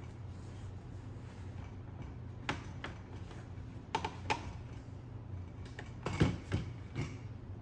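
Hands handling packaging and plastic parts: scattered light clicks and taps, several close pairs in the second half, over a steady low hum.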